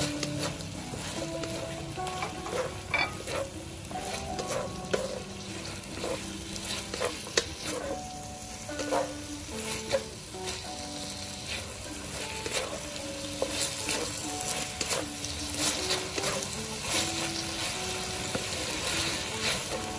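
Sliced beef and red and green chili strips sizzling in a wok while a wooden spatula stirs them, with frequent short scrapes and taps of the spatula against the pan over a steady sizzle.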